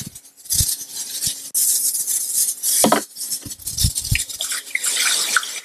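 Water poured from a plastic jug into plastic reagent bottles to dilute the graded alcohols, a splashing hiss in stretches, with a few dull knocks of the plastic jug and bottles being handled.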